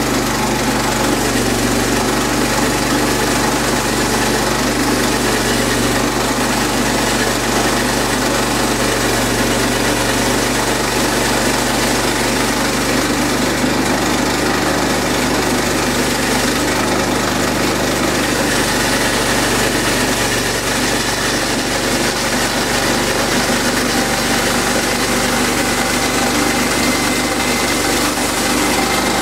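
Sawmill engine running steadily, at a constant speed with no breaks.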